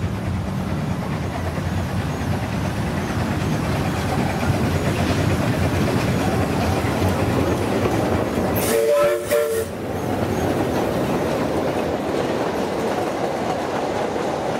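Small Bagnall 0-4-0 saddle-tank steam locomotive approaching and passing with its train, sounding two short blasts on its whistle about eight and nine seconds in. The open passenger carriages then roll past with a clickety-clack over the rail joints.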